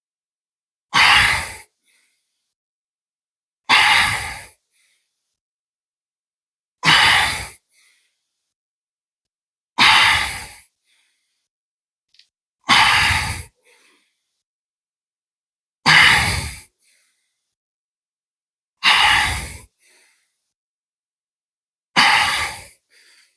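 A man's heavy, forceful exhalations, eight in all, about one every three seconds, each a short loud blow of breath with silence between. He is out of breath from hard cardio work.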